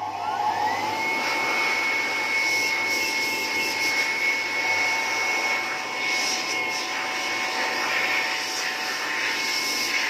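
GF 750 electric ring blower spinning up, its whine rising for about a second, then running steadily at full speed with a high, even whine and a rush of air.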